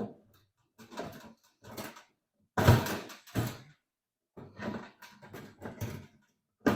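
Diesel air heater casing and parts being handled and fitted together: a series of knocks and clatters, loudest a little under halfway through, with a sharp knock near the end.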